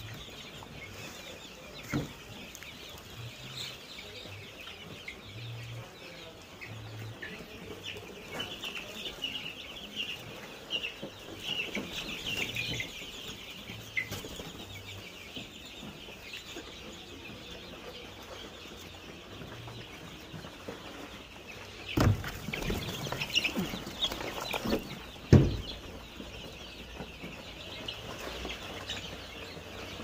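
A brooder full of three-week-old chicken chicks peeping, the peeps thickest in the first half. A few loud thumps come about two seconds in and twice more near the end.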